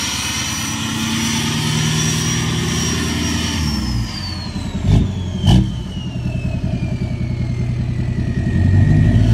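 Engine of a white GMC Sierra heavy-duty pickup running loud through a large exhaust tip. A high whistle holds for about three seconds, then slides steadily down in pitch. Two sharp loud blips of the throttle come about five seconds in, followed by a fast pulsing exhaust note that builds to its loudest near the end.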